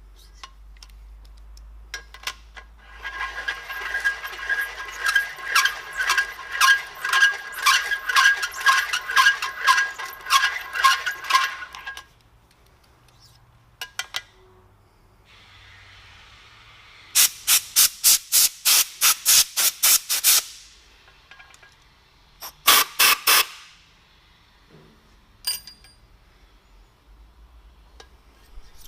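Hand-turned valve seat cutter scraping and squealing in rhythmic strokes, about two or three a second, as it cuts a 45-degree valve seat in a Cummins 12-valve cylinder head. Later comes a hissing run of quick, sharp compressed-air blasts blowing the metal shavings off the cutter, and a shorter burst of them near the end.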